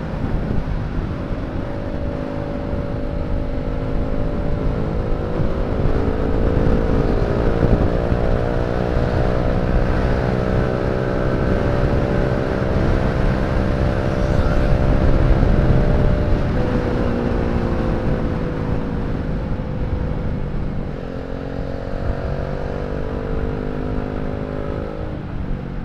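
Motor scooter engine running through a newly fitted aftermarket racing silencer while riding: the note climbs steadily as the scooter accelerates, eases off about two-thirds of the way in, then climbs again near the end. The rider finds the cheap silencer sounds a little cracked when ridden fast.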